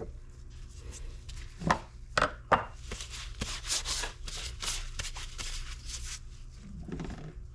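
Hard parts being handled: three sharp knocks about two seconds in, then a few seconds of quick rubbing and scraping strokes, over a low steady shop hum.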